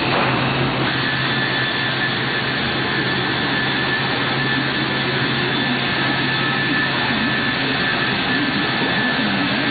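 Steady, loud drone of woodworking panel-processing machinery running, a Biesse Skipper 100 CNC machine among it, with a low hum and a thin high whine that joins about a second in.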